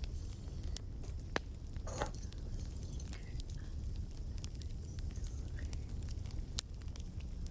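Wood fire crackling: scattered sharp pops and snaps over a low, steady rumble, with a longer, louder snap about two seconds in.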